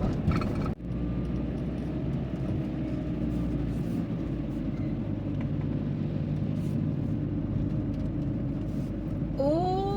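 Steady engine and road rumble inside the cabin of a Renault Kangoo being driven along.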